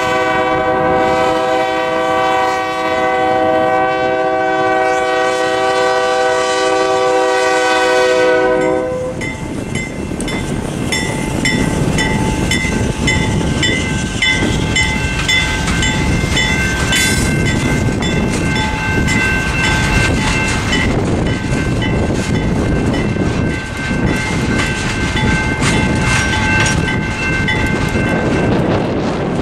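GE B39-8 diesel locomotive's horn blowing a long, steady chord that cuts off about nine seconds in. The locomotive and a string of tank cars then roll through the crossing, wheels clattering on the rails, while the General Signals Type 2 electronic crossing bells keep dinging.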